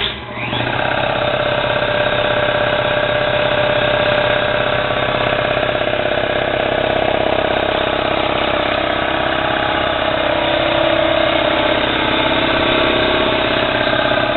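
Ingersoll Rand 60-gallon vertical air compressor, driven by a 5 hp single-phase electric motor, starting up and then running steadily as its pump fills the tank. It comes up to speed within about half a second and holds an even, loud running sound.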